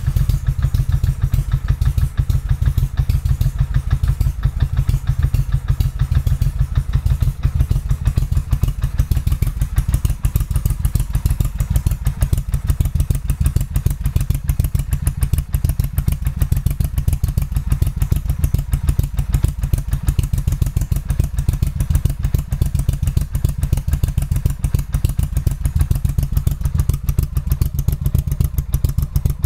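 Motorcycle engine running steadily with rapid, even exhaust pulses, cold and only just started.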